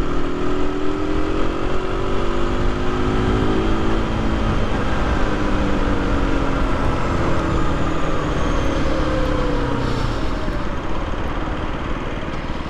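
Aprilia RS 125's single-cylinder four-stroke engine pulling the bike along under way, with wind rush on the microphone. The engine note climbs as the bike accelerates, then drops away about ten seconds in as it slows down.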